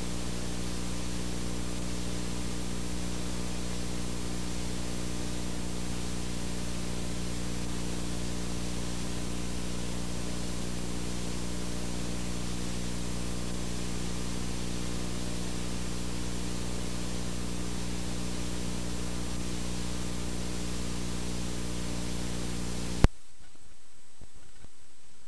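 Steady hiss and hum from a VCR playing the blank end of a videotape. About 23 seconds in there is a sharp click and the hum drops away, leaving a fainter hiss as the deck stops and goes into rewind.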